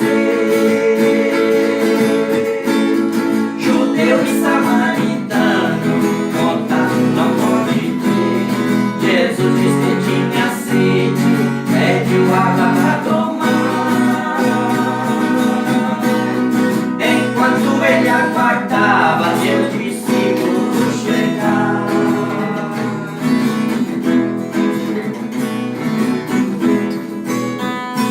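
Acoustic guitar strumming steadily through an instrumental passage between verses of a Portuguese gospel worship song.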